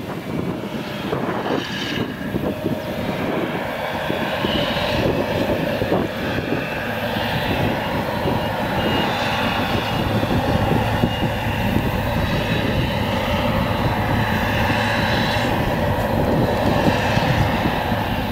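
Claas Jaguar 970 self-propelled forage harvester working under load, engine and chopper running steadily as it cuts and chops whole-crop triticale and blows it into a trailer.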